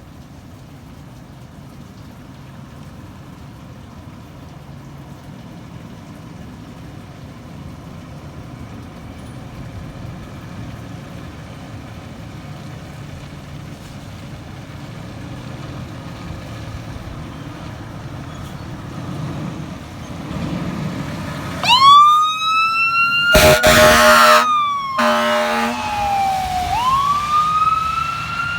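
Low traffic rumble slowly growing louder as a fire engine approaches on an emergency run. About 22 seconds in, its siren starts wailing, rising and falling, and two loud air horn blasts cut in a second or so later, over the siren.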